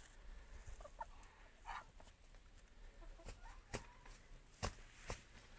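A young rooster and a drake fighting. Two short clucking calls come about a second in, then several sharp slaps as the birds scuffle, all faint.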